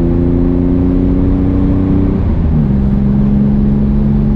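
Rebuilt air-cooled flat-six of a 1965 Chevrolet Corvair Monza with a new performance exhaust, heard from inside the cabin while driving. The engine note climbs slightly, drops in pitch about two seconds in as the revs fall, then holds steady.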